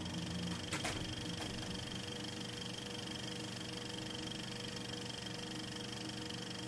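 A steady low hum with a thin high-pitched whine over faint hiss, with a sharp click about a second in and a fainter one shortly after.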